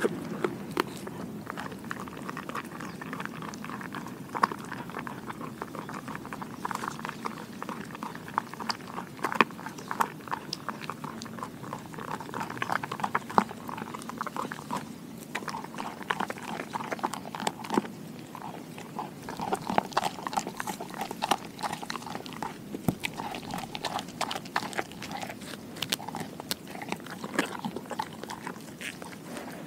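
A Doberman gnawing and crunching a raw pig ear with her back teeth: a steady run of irregular crunches and clicks as her teeth work through the cartilage, close to the microphone.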